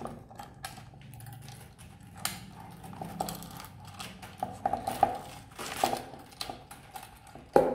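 Metal chain strap of a wooden box clutch clinking and rattling in short, scattered clinks as it is pulled out of the box and laid across a wooden table.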